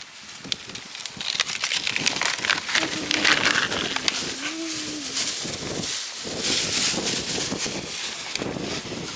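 Gritty rustling and crackling of garden soil being scraped and pressed by hand, thick with small clicks. A faint low call rises and falls twice near the middle.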